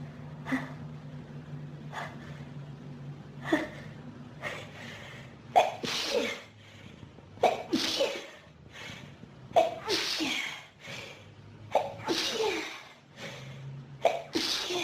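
A run of human sneezes in an allergic sneezing fit. A few smaller catches and breaths build up first, then about five loud sneezes come in quick succession from about five seconds in, roughly every two seconds.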